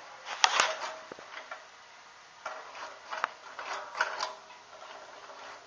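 Go-kart throttle pedal being pressed by hand or foot, its cable and the throttle linkage on the engine giving a few light clicks, knocks and rubs; the engine is not running. The sharpest clicks come just after the start, with more knocks around the middle.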